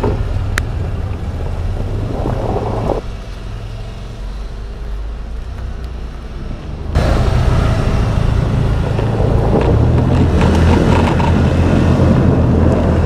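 Can-Am Defender side-by-side's engine running as it drives; the sound drops off about three seconds in and comes back louder around seven seconds.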